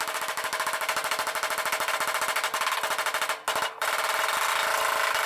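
Handheld power hammering tool working against the steel underside of the van body: a fast, even rattle of many impacts a second, breaking off briefly about three and a half seconds in and then resuming.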